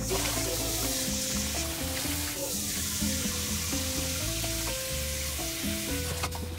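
Instrumental background music with a steady bass line and short held melody notes, over a steady high hiss.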